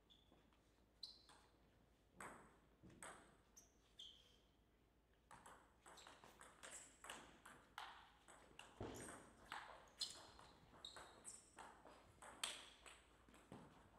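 Table tennis ball clicking: a few separate ticks at first, then a fast rally from about five seconds in, the celluloid-type plastic ball striking rubber bats and the table top in a quick, irregular run of sharp pings that stops near the end as the point is won.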